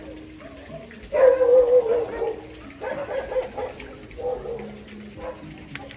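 A dog whining and yelping: one loud, wavering call about a second long, followed by several shorter ones.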